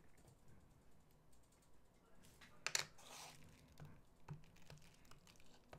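Faint plastic clicks and taps as a StazOn stamp pad is opened and a wooden rubber stamp is dabbed onto its ink pad, with one sharper click about two and a half seconds in.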